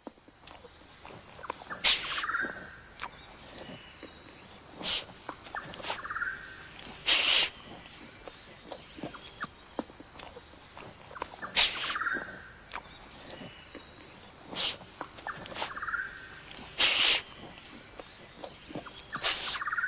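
Short, sharp animal calls, seven in all, coming every two to five seconds over a faint steady background.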